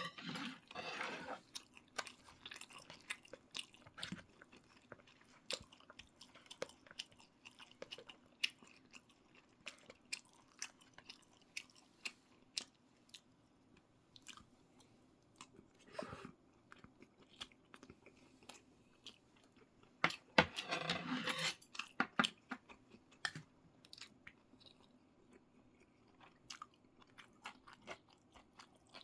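A person eating close to the microphone: chewing and biting with many short, crisp clicks, and louder stretches about a second in and again about two-thirds of the way through.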